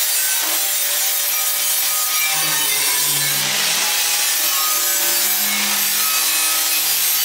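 Angle grinder with a flap disc deburring the cut edges of a 3/8-inch steel smoker door: a loud, steady grinding that runs without a break.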